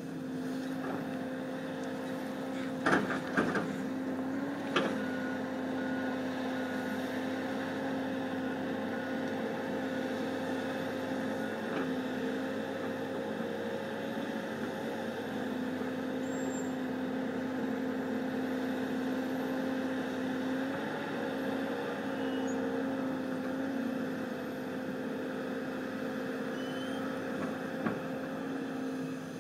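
John Deere 330C LC excavator working, its diesel engine and hydraulics giving a steady drone. There are a few sharp metallic clanks about three to five seconds in, and one more near the end.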